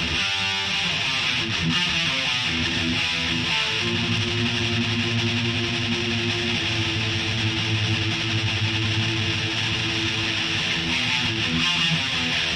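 Distorted electric guitar playing a riff, with quick picked notes at first and then longer held low notes. The playing cuts off abruptly at the end.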